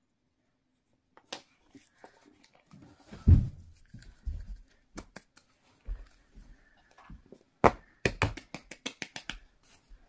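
A plastic tub of play dough and its lid being handled on a table: a heavy knock about three seconds in, scattered taps, then a quick run of sharp plastic clicks near the end.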